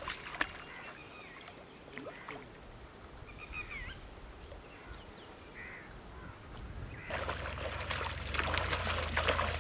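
Shallow pond water sloshing and trickling around a man wading with a hand fishing line, with a few short bird chirps. About seven seconds in, the water noise turns louder and crackly, over a low rumble.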